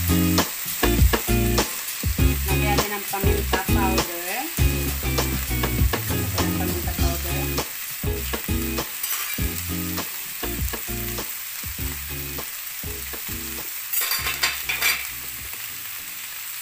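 Chopped pork sizzling in oil in a nonstick frying pan, with a wooden spatula scraping and knocking against the pan as it is stirred. The stirring strokes come thick and fast in the first half and grow sparser later, under a steady sizzle.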